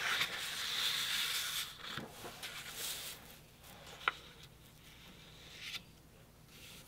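Sheets of paper and cardstock sliding and rustling across a cutting mat as they are moved into place. The rustle is loudest for the first two seconds, then turns to softer scuffs, with a light tap about four seconds in.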